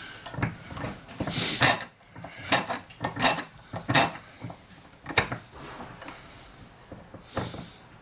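Metal wire rack knocking and rattling against a bench vise as it is clamped for bending: a series of sharp metallic clanks roughly a second apart, the loudest in the first half.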